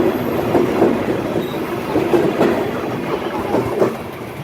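Express train's coaches rolling past, wheels clattering over the rail joints in a steady clickety-clack, a little quieter near the end.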